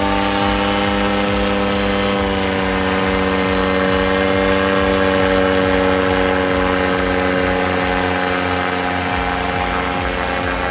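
Paramotor's engine and propeller droning steadily while it flies overhead, the pitch sagging slowly lower through the seconds.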